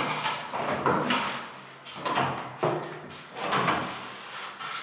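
Cabinet drawers sliding open and shut several times, each stroke a short sliding sound ending in a sharp knock.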